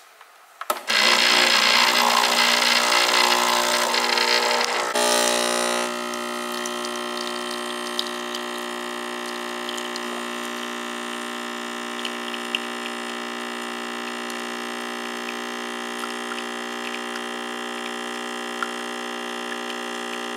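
Espresso machine pulling a shot: its pump starts about a second in with a loud rushing hum. After about five seconds it settles into a steady, lower buzzing hum while the espresso pours, with a few faint ticks.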